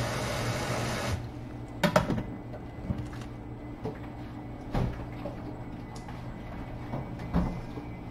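Kitchen sink tap running, then shut off suddenly about a second in. A few scattered knocks and clunks of things being handled follow.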